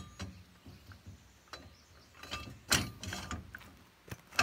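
Steel ripper spike being fitted into a steel three-point hitch frame: a series of sharp metal knocks and clanks, some with a short ring. The loudest is a scraping clank about three seconds in, with another sharp knock near the end.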